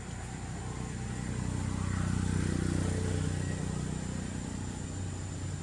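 A motor vehicle's engine passing by, a low hum that swells to its loudest about two and a half seconds in and then fades.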